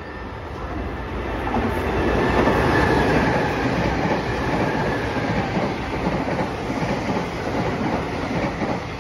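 Nankai electric train running on its line, the sound building over the first couple of seconds and then holding steady.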